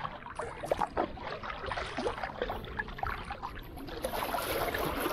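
Wooden paddle dipping and splashing in the water with uneven strokes, with water lapping around a small wooden canoe.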